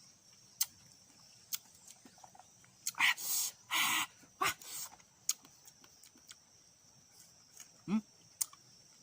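Crisp clicks and cracks of dry tamarind pods being broken and bitten, with a few loud breathy puffs about three to five seconds in, over a steady high insect drone.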